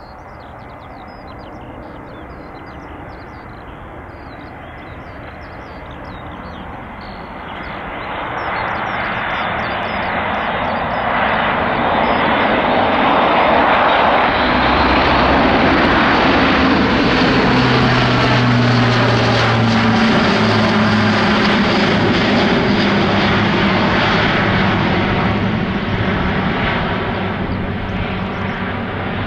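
Airbus A400M military transport flying a low pass overhead, the drone of its four TP400 turboprops and eight-bladed propellers. It builds steadily as the aircraft approaches, is loudest about halfway through as it passes, then slowly fades with the engine tones dropping a little in pitch as it flies away.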